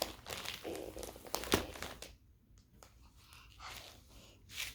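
Crinkling and rustling of small pieces of craft material being handled and pushed into a hole, with one sharp tap about a second and a half in and softer rustles after.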